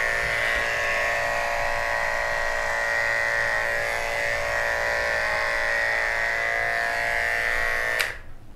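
Corded electric pet hair clipper running with a steady buzz, held to a cat's fur, then switched off abruptly about eight seconds in.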